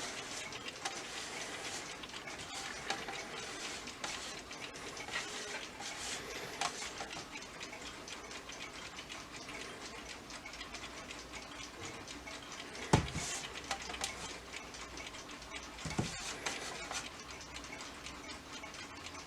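Rhythm 3RA001 alarm clock ticking steadily. Two louder knocks come about two-thirds of the way through, some three seconds apart.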